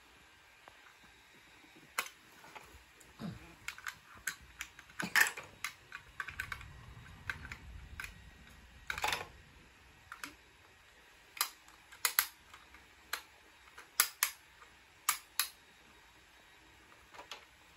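Irregular plastic clicks and clatters from a toy wheel loader and a plastic toy screwdriver being handled, with the loader knocked and set down.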